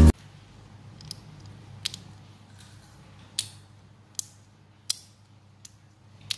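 Bubbles of a handmade pop-it fidget toy being pressed. About eight short, sharp pops come at uneven intervals, roughly one every half second to second.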